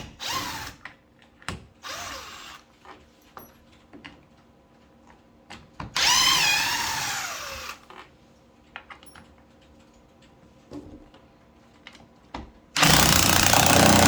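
Cordless drill driving screws into a door hinge in several short trigger runs: brief spurts near the start, a longer run about six seconds in whose motor pitch rises and falls, and another run near the end. Small clicks and knocks of handling fall between the runs.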